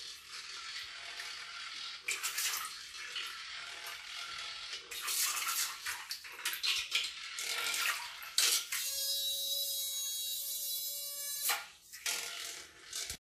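Water sloshing and splashing in a filled washbasin as a small RC torpedo runs and a hand stirs the water. About nine seconds in, a steady high whine with several overtones sounds for about two and a half seconds: the torpedo's 6 mm micro motor spinning its propeller in air once the torpedo is lifted out.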